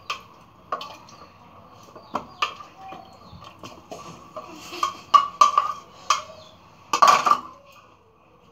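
Scattered clinks and knocks of china plates and a steel spoon being handled on a counter, the loudest about seven seconds in, over a faint steady hum.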